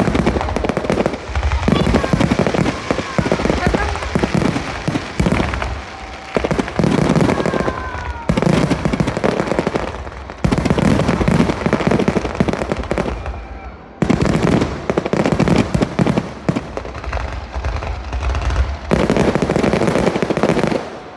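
Aerial fireworks going off in rapid succession: dense bangs and crackling with low booms, in waves broken by short lulls, and a few faint whistling glides.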